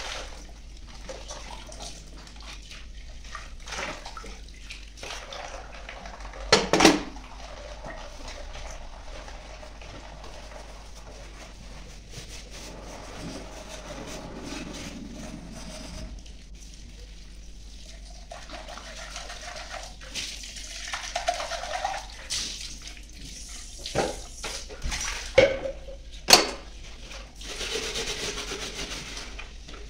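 Tap water running into a kitchen sink as dishes are rinsed by hand, the flow changing as items pass under it. Glasses and dishes knock sharply as they are set down on a stainless steel tray, once about seven seconds in and several times near the end.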